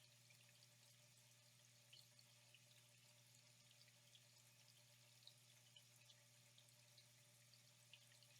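Faint trickling water with irregular small droplet plinks, several a second, over a low steady hum.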